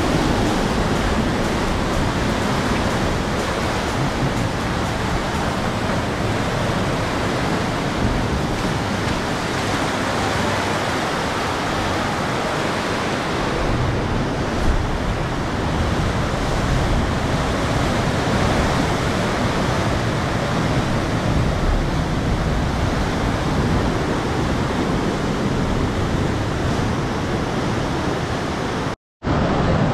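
Steady roar of ocean surf breaking on the shore, a constant even wash of noise. It cuts out completely for a moment near the end.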